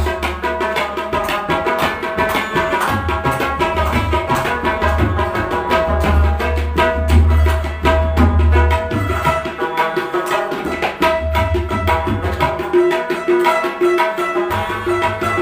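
Tabla played in a fast rhythm, with deep strokes from the bass drum coming and going, over a plucked Afghan rubab melody. This is an instrumental passage of qawwali accompaniment with no singing.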